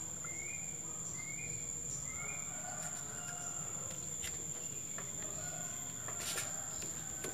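Steady high-pitched drone of insects in the background, with a bird chirping in a regular series of short rising notes for the first two seconds or so. A few faint clicks of hand tools come in the middle and near the end.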